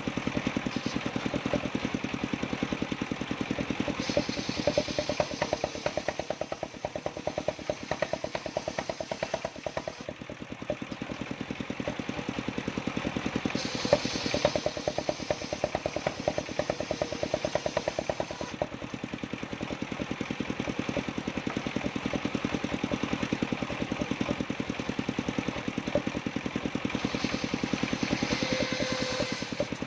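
Engine of a mobile circular sawmill running steadily with an even, rapid firing beat. A higher rasping noise rises over it three times for a few seconds each.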